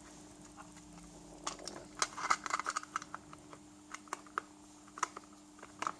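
Small plastic clicks and taps from handling the parts of a wind-up dynamo flashlight as it is put back together, with a quick cluster of clattering clicks about two seconds in.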